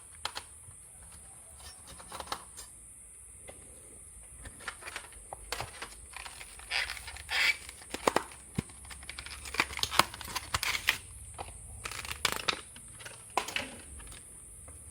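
Irregular small clicks, taps and short scraping rustles of parts being handled inside an opened ASUS X441B laptop as a part is taken out of the drive bay, busiest through the middle.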